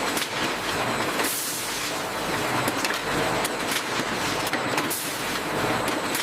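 Steady mechanical running noise, with a few faint clicks and knocks.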